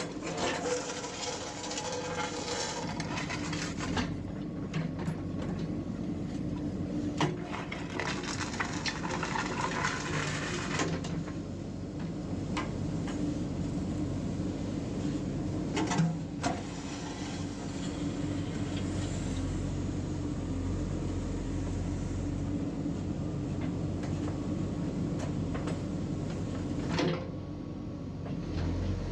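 JCB 3DX backhoe loader's diesel engine running steadily, with rougher noisy stretches near the start and from about eight to eleven seconds in, and a few sharp knocks, the loudest about sixteen seconds in.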